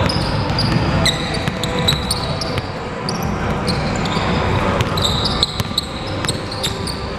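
Basketball game on a hardwood gym floor: sneakers squeaking in many short, high chirps, with sharp knocks of the ball bouncing and feet landing, over the low rumble of the large gym.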